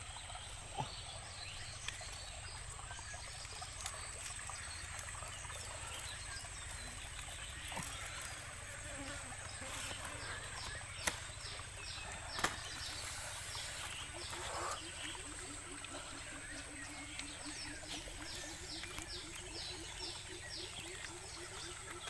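Forest ambience of insects, with a steady high hum. About halfway through, a fast series of high chirps and a low, rapidly pulsing animal call begin. A few soft sharp clicks come from hands handling the grilled bird and leaf.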